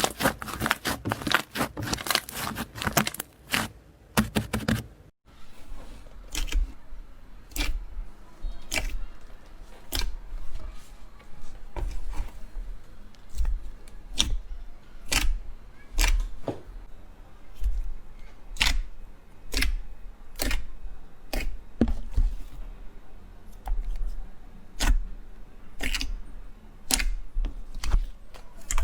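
Slime being handled: dense crackling for about the first five seconds, then, after a brief gap, sharp clicks or pops about once a second, each with a soft low thud.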